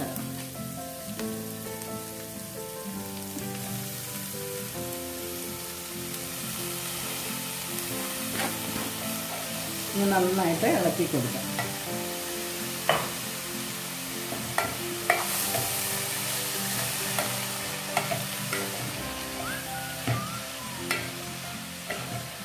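Sliced onions sizzling in hot oil in an aluminium pan, stirred with a wooden spatula that clacks against the pan now and then. About ten seconds in, chopped agathi leaves go in and the stirring carries on through them. Soft background music plays underneath.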